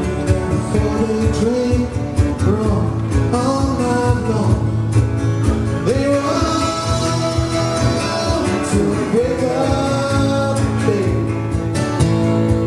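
Live country-folk song: two acoustic guitars strummed under a man's singing voice, with a drum kit keeping the beat.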